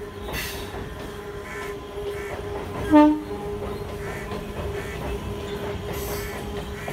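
Electric suburban EMU train running over a bridge, its wheels clacking over rail joints in an uneven series. One short, loud horn blast sounds about three seconds in.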